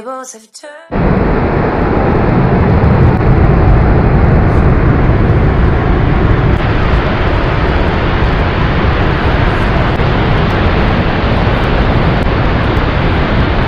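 River water rushing over a waterfall and through rapids: a loud, steady rush of whitewater that starts about a second in, as background music cuts off.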